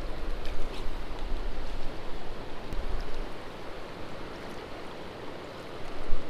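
Mountain trout stream rushing steadily, an even hiss of flowing water, with a few faint clicks about half a second and three seconds in.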